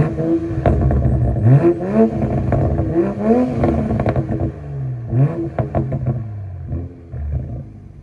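Toyota Supra 3.0's turbocharged straight-six (B58) being free-revved at a standstill through its exhaust: the revs are blipped up and let fall again and again, with sharp cracks as they drop. It revs freely because the car has no soft limiter, and the sound dies away near the end.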